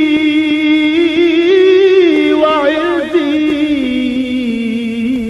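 Solo male voice chanting an Arabic qasida (naat) without instruments, drawing out one long ornamented note with small melodic turns that steps slowly down in pitch.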